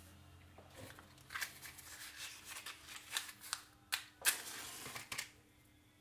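A matchbox being handled and a wooden match struck on its side: a few faint rattles and scrapes, with one louder rasping strike and a short hiss of the match head flaring about four seconds in.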